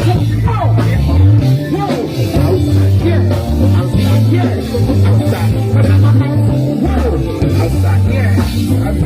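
Loud live music over a PA system: a deep bass line of held notes with a voice singing over it at times.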